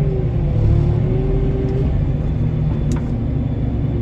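Forklift engine running steadily, heard from inside its cab, with a higher whine over the low hum that dips briefly just after the start. A single sharp click about three seconds in.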